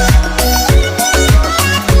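Background music with a steady dance beat: a kick drum about every 0.6 seconds under a bass line and melody.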